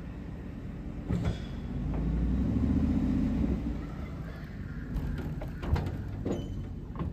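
Pickup truck engine pulling a horse trailer loaded with a cow over soft, muddy ground, rising in revs under load about two seconds in and easing off again. Several sharp knocks and rattles from the trailer punctuate it.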